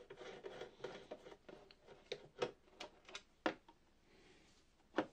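Screwdriver fastening a monitor arm's mounting plate to the back of a monitor: faint, irregular clicks and ticks of the driver and screws. A few louder clicks stand out, the sharpest near the end.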